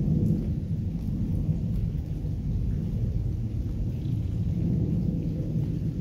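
Steady rain falling over a lake, heard from under a covered shelter, with a deep steady rumble beneath it and faint scattered drop ticks.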